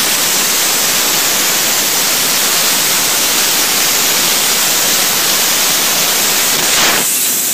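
Blizzard ice-blasting jet, compressed air driving CO2 pellets and water ice, hissing steadily. Near the end it briefly surges, then thins to a higher, lighter hiss.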